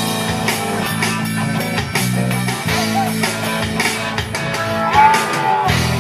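A live band playing an instrumental passage of a rock song: guitars over drums, with a bent guitar note about five seconds in.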